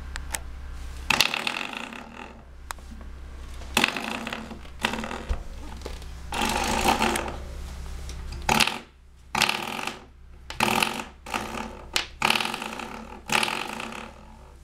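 Coiled-spring doorstop being flicked by hand, twanging with a metallic boing about ten times at irregular intervals, each twang ringing briefly.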